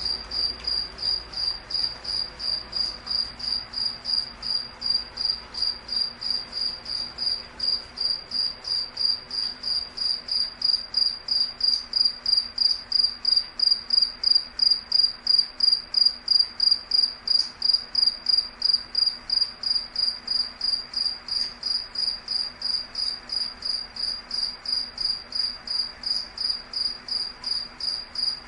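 A cricket chirping steadily, a high pure chirp repeated evenly about three times a second, a little louder in the middle.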